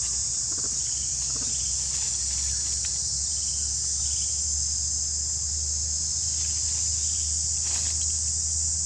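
Steady high-pitched insect drone, unbroken and even in level.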